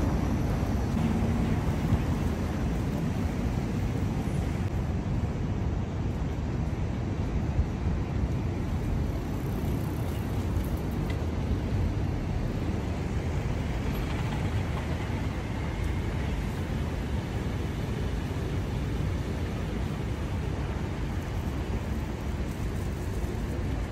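Steady city road traffic: a continuous low rumble of cars running on a busy multi-lane street.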